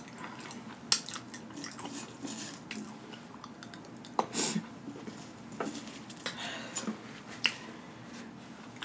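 Close-up mouth sounds of someone chewing spicy tortilla chip crumbs, with wet lip smacking and several sharp clicks spread through, and a short hissing breath about halfway through.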